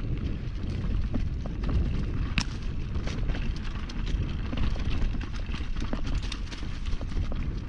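Mountain bike descending a rough downhill trail at speed: a heavy wind rumble on the microphone, with tyres over dirt and rocks and frequent sharp clicks and rattles from the bike.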